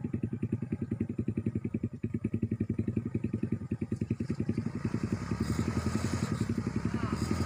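A small engine running steadily with an even beat, getting louder about halfway through.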